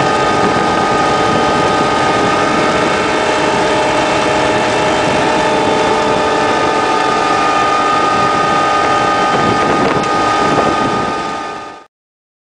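Ploeger self-propelled bean harvester running steadily in the field. Its engine and machinery make a constant drone with several steady whining tones, which fade out near the end.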